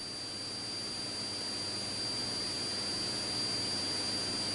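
Steady hiss with a thin, high steady tone above it: the background noise of a police helicopter's radio and intercom audio feed between transmissions.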